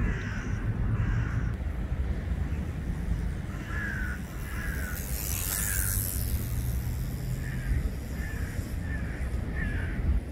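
Crow cawing repeatedly: three short calls about four seconds in and five more near the end, over a steady low city rumble. A brief hiss comes about halfway through.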